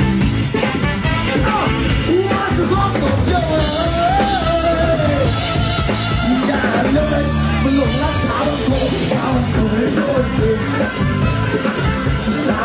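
Live band music with a singer, loud and continuous.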